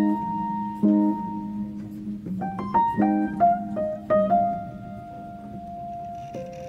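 Background music: a slow, gentle melody of clear single notes, several held for a second or two, over a sustained lower note.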